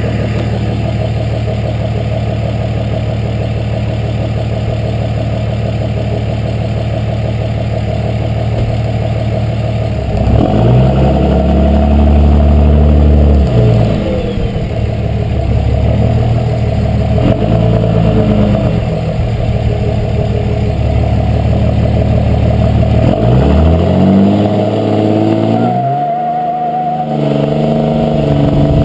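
Dodge 5.9 L Cummins turbo-diesel with a 5-inch MBRP turbo-back exhaust idling steadily for about ten seconds, then pulling away, its pitch climbing and dropping several times as it accelerates. A thin turbo whine shows near the end.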